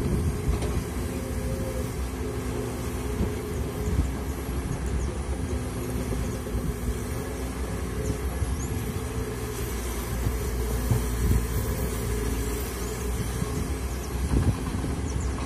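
Komatsu PC200 hydraulic excavator's diesel engine running steadily under load while it digs into soil with its bucket.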